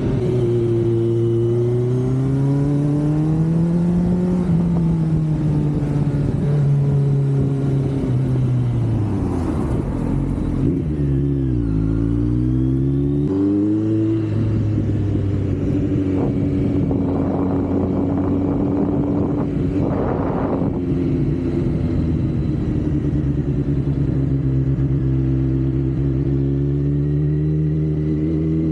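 Kawasaki Z900 inline-four engine running under way, its pitch rising and falling with the throttle. About a third of the way in, the pitch drops and wavers as the bike slows, then it picks up again and holds fairly steady. Wind buffets the microphone at times.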